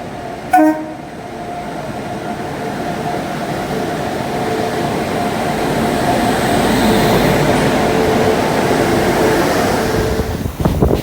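An Indian Railways electric-hauled express train approaching and passing, getting louder, with a short horn blast about half a second in. Near the end the wheels start clicking rapidly over the rail joints.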